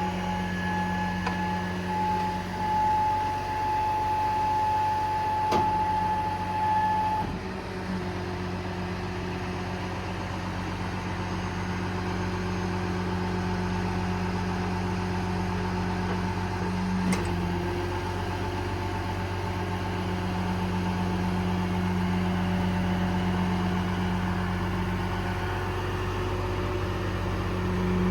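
PACCAR PX9 diesel of a Kenworth T370 service truck running steadily, with a steady higher whine over it that stops about seven seconds in, and a couple of faint clicks.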